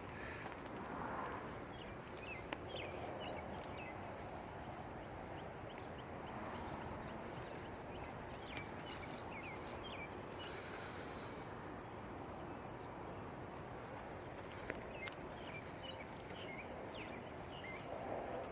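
Faint outdoor ambience: a steady background hiss with many short, high chirps, like small birds calling.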